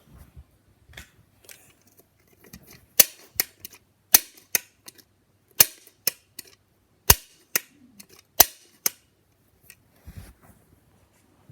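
A series of sharp clicks and snaps, the five loudest about a second to a second and a half apart, with fainter clicks around them.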